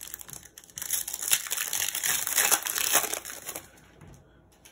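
A trading-card pack's plastic wrapper crinkling, starting about a second in and lasting about three seconds.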